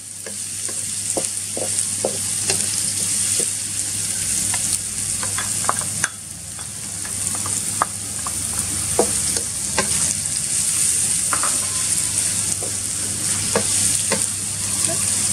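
Sliced lemongrass and chillies sizzling in hot oil in a metal wok, a steady high hiss, with a wooden spatula scraping and knocking against the pan every second or so as it is stirred.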